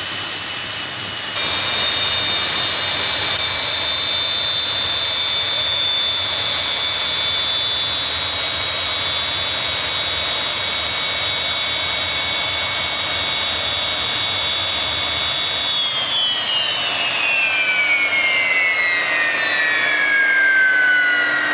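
Rolls-Royce Avon Mk 1 axial-flow turbojet running with a steady high whine over a rushing rumble, getting louder just over a second in. About sixteen seconds in the rumble cuts out and the whine falls steadily in pitch as the engine spools down.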